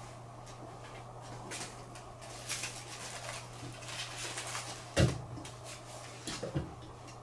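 A pocket tissue packet's plastic wrapper crinkling and rustling in short bursts as a cat claws and bites it on a wooden floor. About five seconds in comes a loud thump, followed by a couple of lighter knocks, over a steady low hum.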